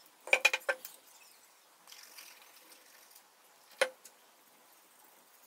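Light, sharp knocks of wooden chair parts being handled: a quick run of four or five clicks, then a single click about three seconds later.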